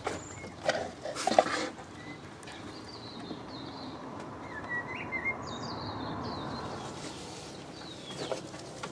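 Small birds chirping in short, quick pitch sweeps over a steady background hiss. A few sharp knocks come about a second in.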